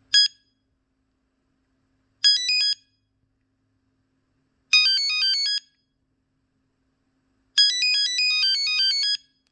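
A Samsung Hue 2 cell phone playing one of its preloaded ringtones: a beeping synthesized melody of quick stepping notes. It comes in four phrases, each longer than the last, with pauses of about a second and a half between them.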